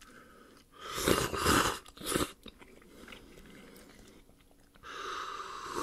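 Eating sounds from someone having instant cup noodles: a noisy slurp about a second in, a short one after two seconds, and a longer one near the end.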